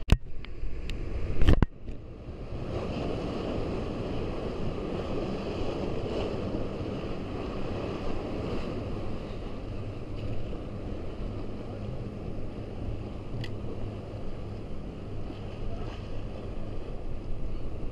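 Waves washing and breaking against jetty rocks, with wind on the microphone, as a steady rushing. A few sharp knocks come in the first two seconds.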